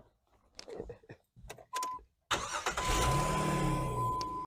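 2004 Jeep Liberty's 3.7 V6 cranking and catching a little over two seconds in, its revs rising and then settling back toward idle. A steady high-pitched tone sounds alongside it, and a few small clicks and knocks come before the start.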